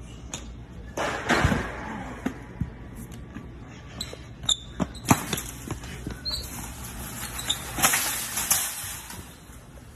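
A string of sharp thuds and scuffs as people grapple and fall onto a concrete warehouse floor, the loudest about five seconds in, then a metal shopping cart rattling as it is pushed along.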